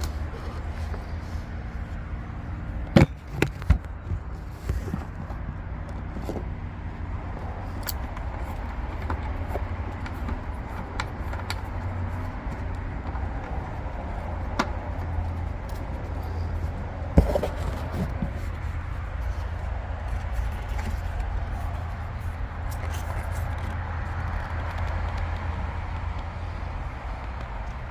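Steady low hum with scattered sharp metallic clicks and knocks of bolts and hand tools on a pump housing. The loudest knocks come about three seconds in and again about seventeen seconds in.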